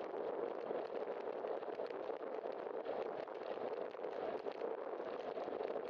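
Steady rushing noise of a bicycle ride picked up by a bike-mounted camera: wind and tyres on wet pavement, with a fine, continuous crackle of small ticks.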